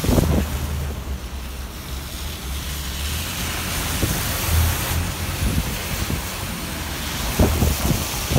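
Steady city street ambience: a wash of traffic noise with a low rumble, and wind buffeting the microphone in low thumps that come again near the end.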